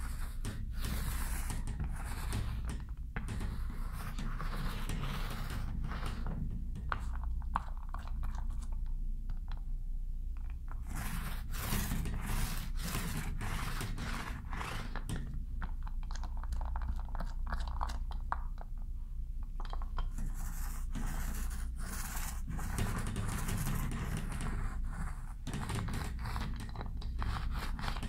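Paint roller spreading contact cement adhesive onto drywall: a scraping, rolling noise in repeated back-and-forth strokes, with short pauses between stretches.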